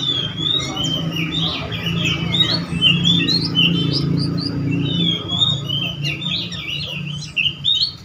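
Caged songbirds singing a busy stream of quick, high chirps and warbling phrases, one after another without pause, over a low steady hum.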